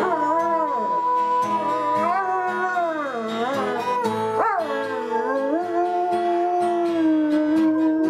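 German Shepherd howling in long notes that glide up and down, along with a strummed acoustic guitar.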